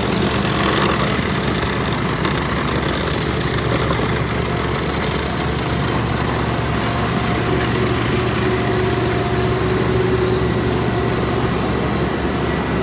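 Diesel engines of asphalt paving machinery running steadily with a constant low hum. Faint held tones come in and out about halfway through.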